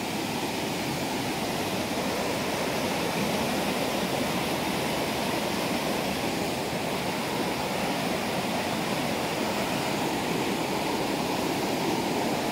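Whitewater of a rocky forest stream rushing down a cascade over sandstone ledges: a steady, full rushing noise with no pauses.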